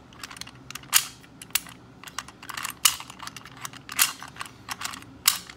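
Antique single-lever rim lock being handled and tried with a newly cut bit key: a run of irregular sharp metal clicks and clacks as the key goes into the keyhole and is worked in the lock.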